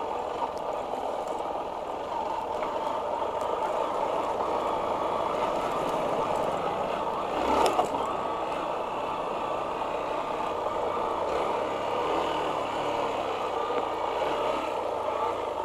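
Hero Xpulse 200's single-cylinder engine running steadily as the bike is ridden, mixed with rushing wind noise on the rider's mic. A brief louder thump about seven and a half seconds in.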